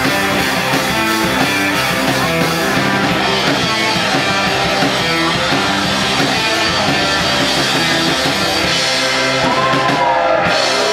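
Live rock band with electric guitars, bass and drum kit playing a loud instrumental passage without singing. Near the end it hits a final crash, with a few shouts from the audience.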